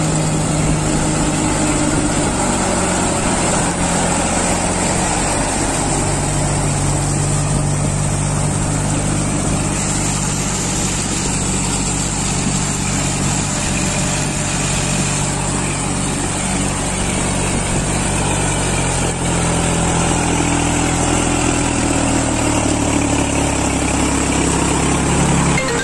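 New Holland four-wheel-drive tractor's diesel engine running steadily, its speed rising and falling a little as it is manoeuvred.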